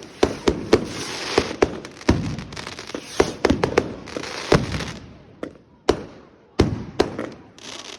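Fireworks going off in quick succession: a dense run of sharp bangs and crackle for about five seconds, thinning to a few separate bangs, each trailing off.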